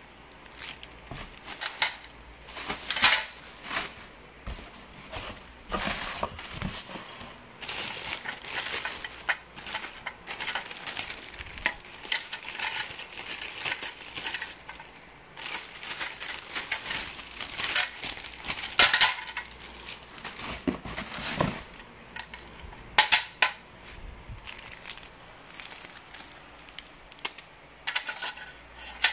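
Clear plastic packaging crinkling and rustling as a metal rear bicycle rack and its parts are handled and unwrapped, with irregular sharp clinks and knocks of the metal parts.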